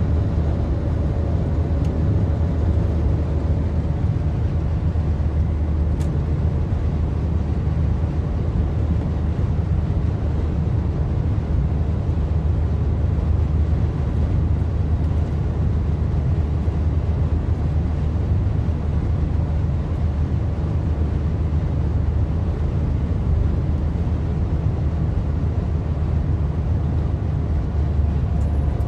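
Steady low rumble of a car's engine and tyres on the road, heard from inside the car at highway speed.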